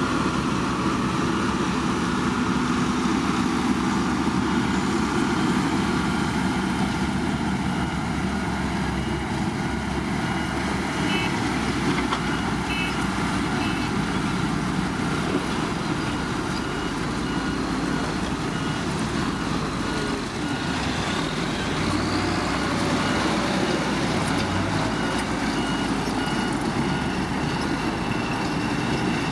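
Heavy diesel motor grader running steadily under load while working gravel. A faint high beep repeats at intervals.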